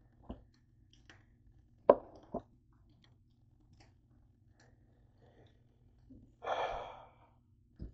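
Hands handling shredded slow-cooked chicken on a kitchen counter: a few scattered knocks and taps, the sharpest about two seconds in, and a short breathy sigh about six and a half seconds in.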